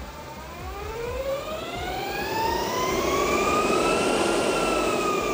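Battery-powered Super Vac 724 aircraft brake cooling fan spinning up after being switched on: a rising whine with several overtones over rushing air, levelling off about four seconds in and easing slightly near the end.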